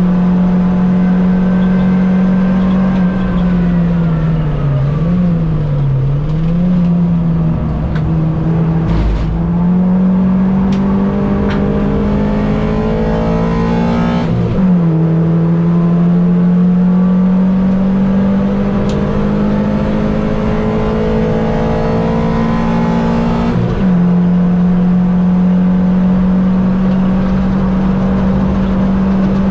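Racing Mini's engine at high revs: the note falls and wavers as it slows for a corner about five seconds in, then climbs steadily under hard acceleration, with quick upshifts about fifteen seconds in and again near twenty-four seconds.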